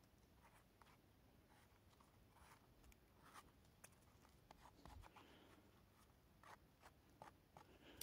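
Knife blade scraping dirt off the stem of a freshly picked bolete mushroom, in faint, short, irregular scratching strokes.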